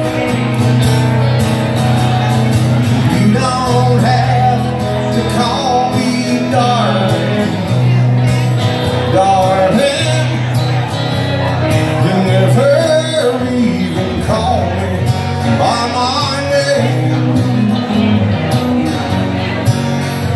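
Live country song played on an electric guitar and an acoustic-electric guitar through a PA, with a man singing.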